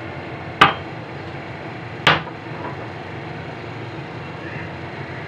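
Two sharp knocks about a second and a half apart, the first the louder: a cup tapped against a steel mixing bowl as flour is tipped into it. A steady hiss runs beneath.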